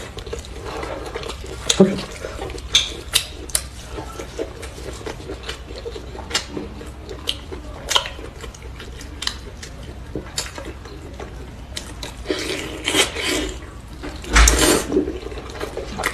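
Eating utensils clicking and scraping against dishes in scattered sharp clicks, with two longer noisy handling bursts about twelve and fourteen seconds in.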